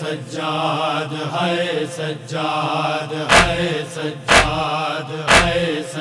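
Noha recitation: male voices chanting a slow, drawn-out lament line. About three seconds in, heavy rhythmic matam (chest-beating) thumps join, about one a second.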